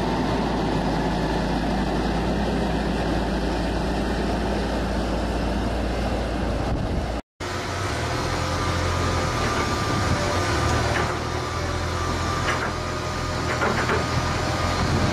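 Engine of a small articulated farm loader running steadily as it pushes a feed-pusher blade along the feed alley. About seven seconds in the sound cuts out for an instant and resumes with a different engine note, with a few light knocks near the end.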